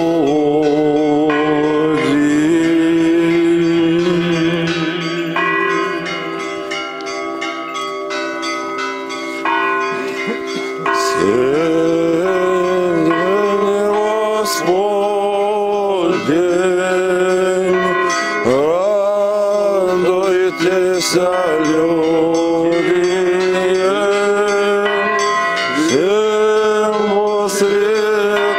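Men's voices singing a sustained Orthodox liturgical chant, with church bells struck at irregular intervals, the strikes more frequent in the second half.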